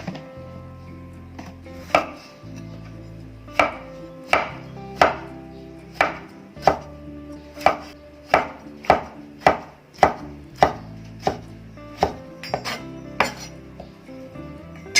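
Knife chopping on a cutting board in single firm strokes, about one to two a second, starting about two seconds in.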